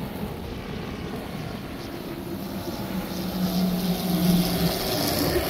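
Twin-engine propeller plane's piston engines droning steadily on its landing approach, growing louder from about halfway as it comes low overhead, with wind and surf in the background.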